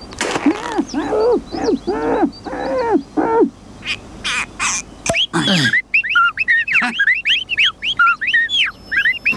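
Cartoon sound effects: about six low, rising-and-falling hooting whistles from the bear cub trying to whistle, then a few breathy blasts and a falling tone. After that comes a rapid run of many short high chirping whistles from the gophers (ground squirrels), which whistle to talk to each other.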